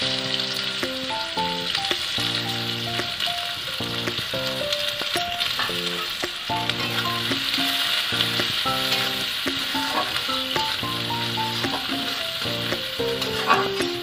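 Chopped onions and chillies sizzling steadily in hot oil in a wok as they are stirred with a spatula, with a sharp knock near the end, over background music.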